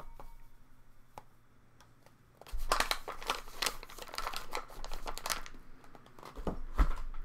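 A packaging bag being crinkled and folded shut by hand, with dense crackling that starts about two and a half seconds in, eases off, and comes back near the end.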